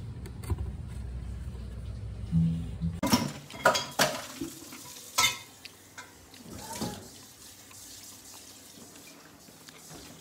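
A low steady hum that cuts off about three seconds in, followed by several sharp knocks and clatters of hard objects being handled, like utensils or dishes, then quieter handling noise.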